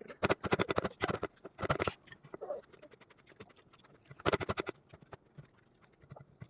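A baby's hands patting and slapping quickly on a feeding tray and soft food. The slaps come in two bursts: a run of about a second and a half near the start, and a shorter run a little past the middle.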